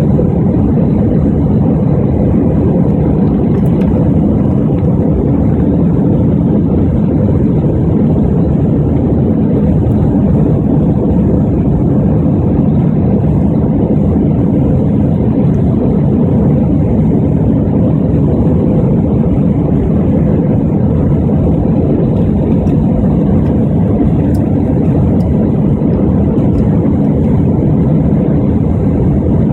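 Cabin noise of an Airbus A320-200 climbing out after take-off: a loud, steady rumble of the jet engines and airflow, heard from inside the passenger cabin.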